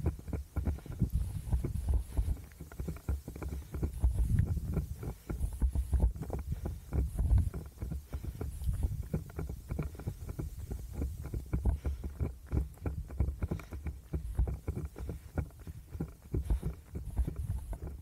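A runner's footfalls at a steady pace, heard as rapid thuds over a low rumble from the body-carried 360 camera's microphone being jostled.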